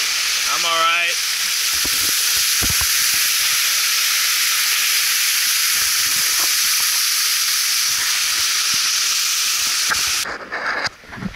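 Steady rushing splash of a small waterfall falling onto rocks, with a person's brief wavering call about half a second in. The rush cuts off suddenly near the end.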